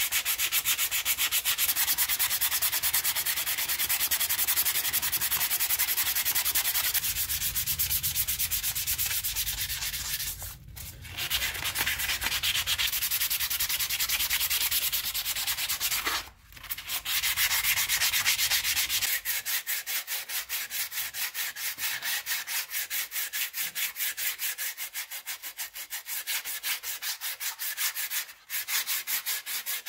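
Sandpaper rubbed by hand over corroded old sword parts: quick, even back-and-forth scratching strokes, about four a second, stopping briefly three times.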